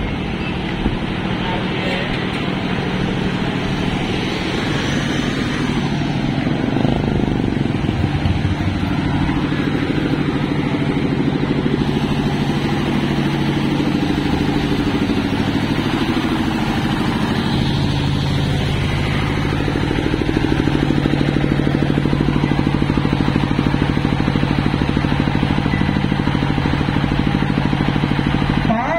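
Motor vehicle engines running steadily, with motorcycles passing now and then, their engine pitch sliding up and down.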